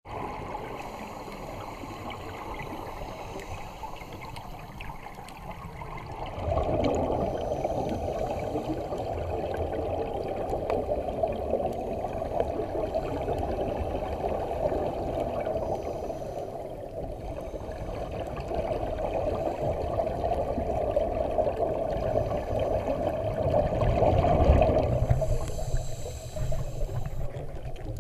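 Scuba regulator exhaust bubbles, heard muffled underwater: a steady bubbling rush that gets louder about six seconds in and eases off near the end.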